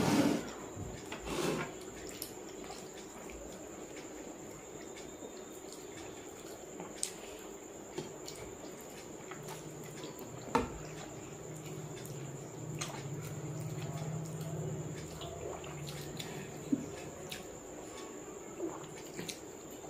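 Wet, squishy sounds of syrup-soaked rasgullas being picked up, bitten and chewed, with scattered small clicks and taps.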